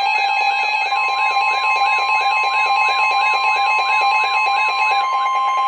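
Emergency alert attention tones: several steady electronic tones layered over a fast warbling tone that repeats about two and a half times a second. A higher steady tone joins about a second in, and the warble stops near the end.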